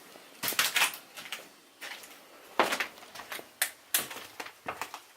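Irregular knocks, thumps and scrapes of someone squeezing down into a cramped basement: footsteps and bumps against the structure, a handful of sharp hits spread unevenly over a few seconds.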